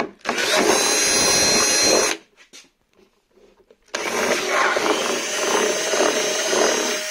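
Electric drill with a small bit boring a pilot hole through a plastic RC car body shell. It runs in two bursts, about two and three seconds long, with a short stop between.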